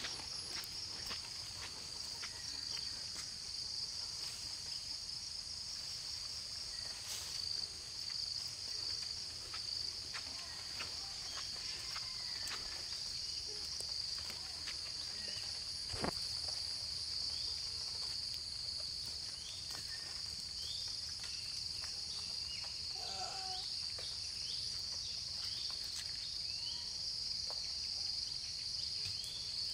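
Steady high-pitched insect chorus, like crickets trilling without a break. A few short chirps sound over it in the second half, and a single sharp click comes about halfway through.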